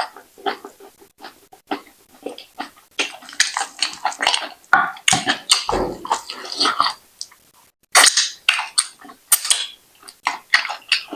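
Close-miked wet chewing and lip-smacking of someone eating fufu with slimy ogbono soup: a dense, irregular run of short smacks and clicks, with a dull bump about six seconds in.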